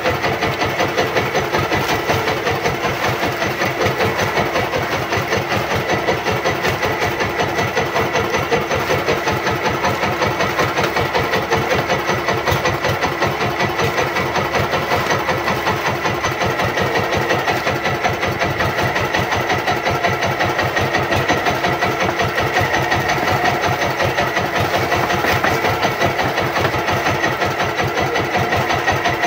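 Engine of a motorised outrigger fishing boat (banca) running steadily, with a rapid, even beat.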